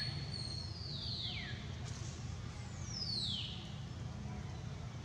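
Infant long-tailed macaque giving short, high-pitched squeals that fall in pitch, one about a second in and another about three seconds in, over a steady low rumble.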